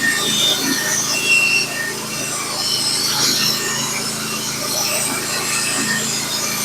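Norwood HD36v2 portable band sawmill running a Stellicut band blade through a log while sawing off a board: a steady sawing noise over the running engine.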